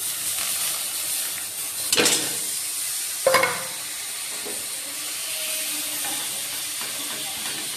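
Sugarcane jaggery sizzling in a hot metal kadai over a gas flame, the steady hiss starting suddenly as the jaggery goes into the pan and begins to melt. A spatula scrapes and knocks against the pan twice, about two and three and a half seconds in.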